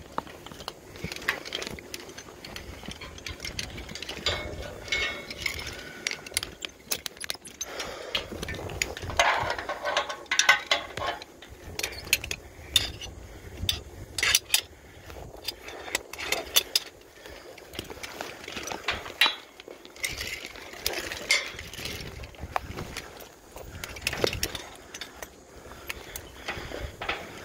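Scattered clicks, clinks and rustling of hand tools, cables and climbing gear being handled, with low rumbles now and then.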